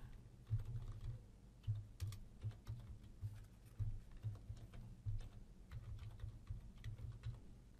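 Typing on a computer keyboard: short, unevenly spaced keystrokes as an email address is entered into a form field.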